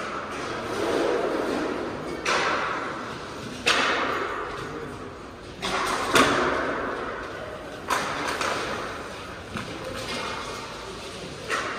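Inline hockey play: about seven sharp clacks of sticks and puck hitting each other and the boards, at irregular intervals. Each one rings out in the large, echoing hall, and the loudest comes about six seconds in.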